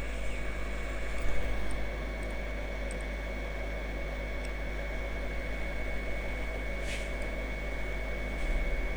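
Hot air rework station blowing steadily: a constant hiss of air with a thin high whine from its fan.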